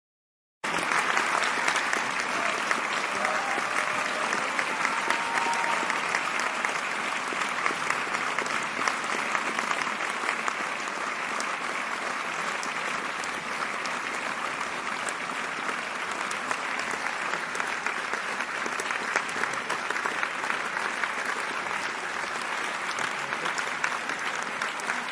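Crowd applause: many people clapping in a dense, steady patter that starts abruptly about half a second in and keeps going without a break.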